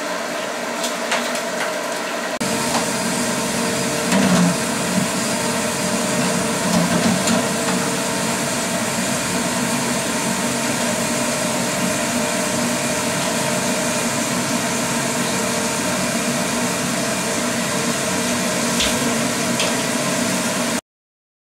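Steady mechanical hum with a few steady tones in it, rising a little about two seconds in and cutting off abruptly near the end. A few soft knocks and clatters come about four and seven seconds in.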